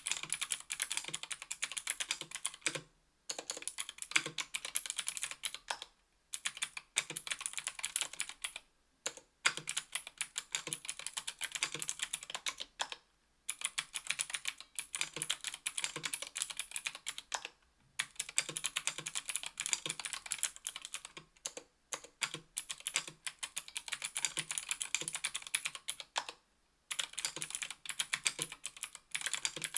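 Fast, steady typing on a 60% aluminium mechanical keyboard with stock Gateron Blue Ink clicky switches (60 g), aluminium plate and GMK keycaps: a dense patter of crisp key clicks, broken by short pauses every few seconds.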